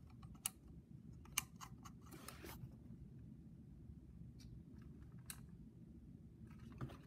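Near silence: quiet room tone with a few faint clicks and one short scrape, a small plastic pocket radio (Sentry PR799) being handled.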